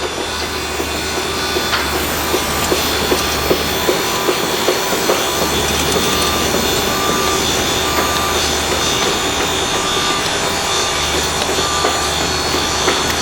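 Construction-site machinery din: a steady mechanical noise with a low hum that cuts in and out, and sharp knocks every half second or so. From about halfway, a beep sounds about once a second.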